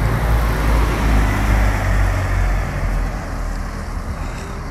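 A car passing on the road alongside, a low rumble and tyre noise that swells about a second in and fades off.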